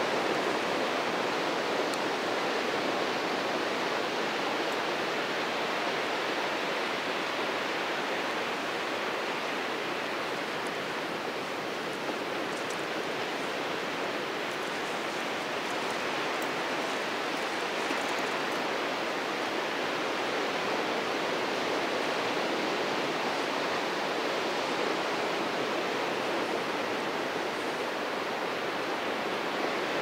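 Steady rush of Atlantic surf breaking along a sandy beach, a continuous even roar with no single wave standing out.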